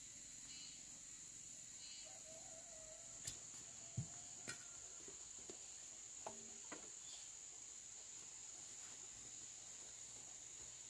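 Insects droning steadily at a high pitch, with a handful of faint sharp knocks about three to seven seconds in.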